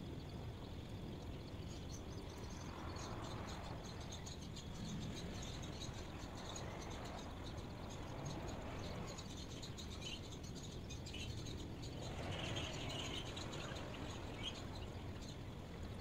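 Steady outdoor ambient noise with faint, scattered bird chirps.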